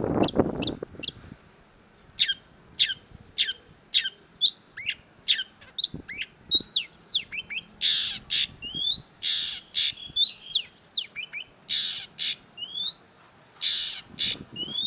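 Long-tailed shrike singing: a fast run of sharp, downward-sweeping notes, about two or three a second, then harsh rasping calls alternating with short rising notes in the second half. A brief low rumble sounds near the start.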